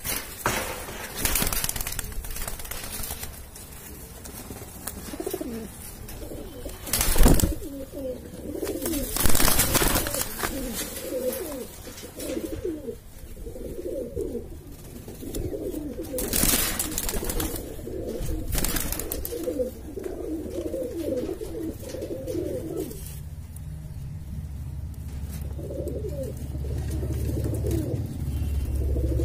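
A flock of Indian high-flying pigeons cooing, with many low warbling coos overlapping. A few brief, loud rustling noises break in, the loudest about 7 and 10 seconds in. A low rumble builds near the end while the cooing pauses briefly.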